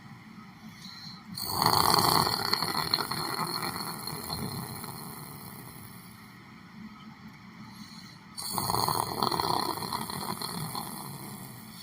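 A sleeping person snoring: two loud snores about seven seconds apart, each starting suddenly and trailing off slowly.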